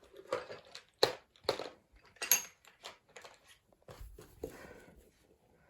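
Irregular clicks, knocks and rustling as something is handled by hand, fading to quiet near the end.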